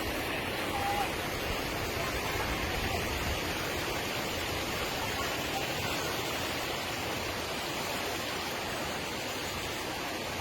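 Waterfall cascading: a steady, even rush of falling water.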